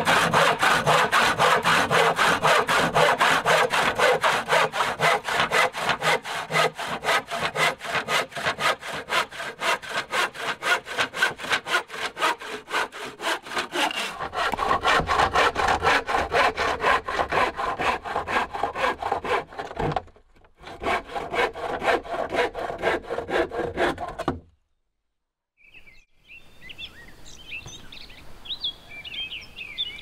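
Hand saw cutting through a wooden plank in quick, even back-and-forth strokes. The sawing pauses briefly about twenty seconds in, goes on for a few more seconds, then stops.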